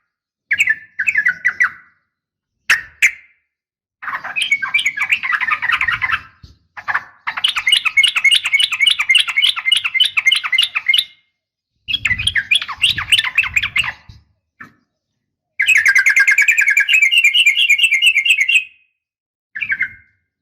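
Yellow-vented bulbuls calling: phrases of rapid chattering notes, about ten a second, broken by short silences, with two longer runs of three to four seconds.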